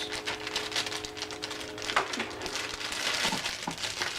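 Food packaging crinkling and rustling as it is handled, with scattered light clicks and knocks; a faint steady hum runs under it and stops about three seconds in.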